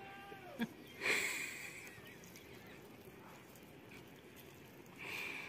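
Faint sounds of noodles being eaten: two short hissy slurps or breaths, one about a second in and one near the end.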